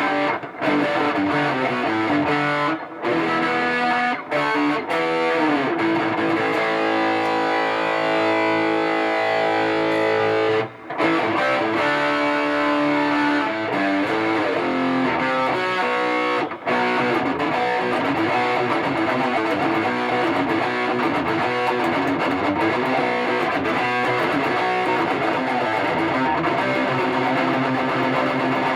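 Electric guitar played loud through a Fender Twin Reverb tube amp: sustained notes and chords, with a few brief breaks. It is a sound test of the amp, just brought back to working order after flood damage.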